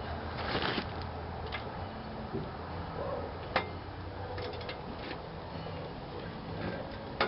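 A few sharp clicks and knocks of metal parts being handled and set in place, the loudest about halfway through and another near the end, over a low steady hum.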